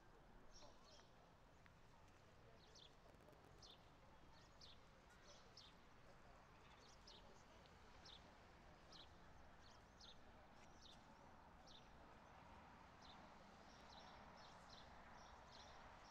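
Faint birdsong: short high chirps repeated at irregular intervals over a quiet outdoor background.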